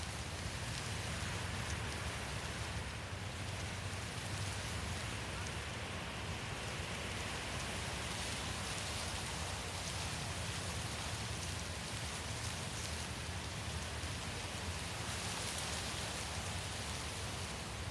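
Wind blowing steadily: an even rushing hiss over a low rumble, swelling gently in a couple of gusts.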